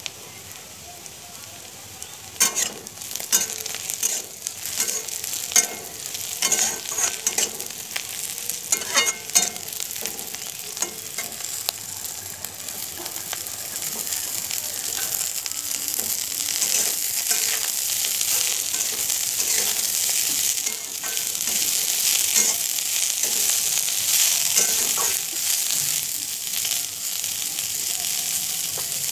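Sliced onions and green chillies frying in hot oil in a metal wok, sizzling with many sharp crackles and clicks. About halfway through, shredded cabbage goes into the pan and the sizzle grows louder and steadier.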